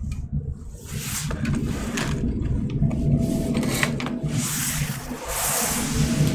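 Hands handling laptop hardware: scattered clicks and scrapes, then a rustling, sliding stretch about two-thirds of the way in, over a steady low hum.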